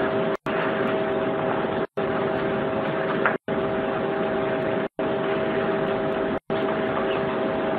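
Steady machine-like hum carrying two steady tones, broken by short silent dropouts about every second and a half.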